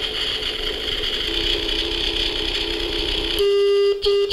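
Opened-up toy megaphone's amplifier and speaker caught in a feedback loop, putting out a hissy electronic noise with a faint low warble. About three and a half seconds in it jumps suddenly to a steady horn-like electronic tone, which drops out briefly once near the end.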